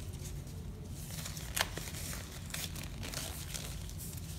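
Blue nitrile examination gloves being pulled on and worked over the fingers: soft crinkling rustles with a few short clicks, the sharpest about one and a half seconds in, over a low room hum.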